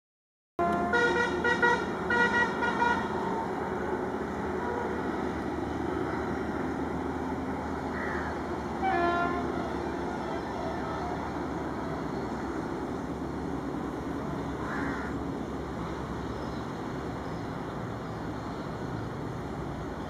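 Several short horn blasts in quick succession, then a single blast about nine seconds in. Underneath is the steady rumble of an approaching express train: a WAP-7 electric locomotive hauling a 17-coach Rajdhani Express at around 100 km/h.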